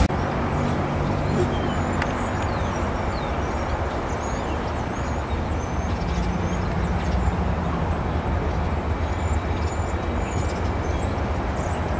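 Low, steady rumble of an approaching BNSF freight train led by GE diesel locomotives, still some distance off, with a faint engine drone. Faint short high chirps come and go over it.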